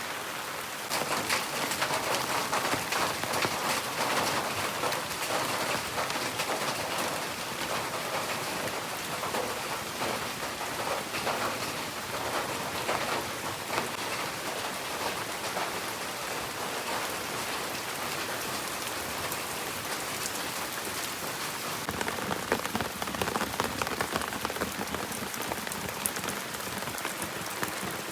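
Steady rain falling, with many close drops striking a surface; it gets heavier about a second in.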